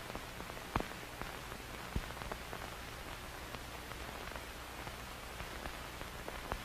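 Steady hiss and crackle with a faint low hum underneath, broken by three sharp clicks: one just under a second in, one at about two seconds and one near the end.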